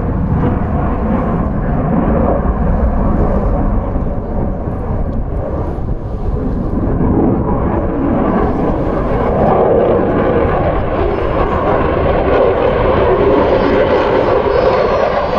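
Jet noise from an F-22 Raptor's twin turbofan engines as the fighter flies by: a loud, continuous rumble that eases slightly about four to six seconds in, then builds again with a shifting pitch.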